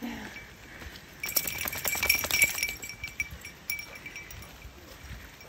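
A small bell jingling as its wearer walks: a steady ringing tone with a dense flurry of jingles about a second in, then scattered jingles at a walking pace.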